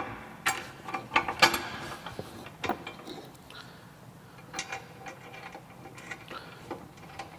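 Metal hardware clicking and clinking as bolts, washers and nuts are fitted by hand to mount a winch fairlead on a Jeep front bumper. A quick run of sharp clicks comes in the first few seconds, then scattered lighter ones.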